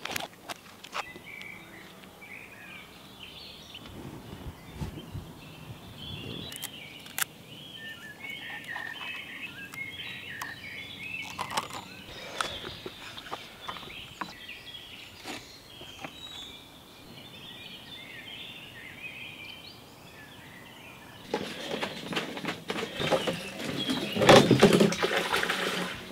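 Wild birds chirping and singing, with scattered small handling clicks. Near the end a louder rushing noise takes over and stops abruptly.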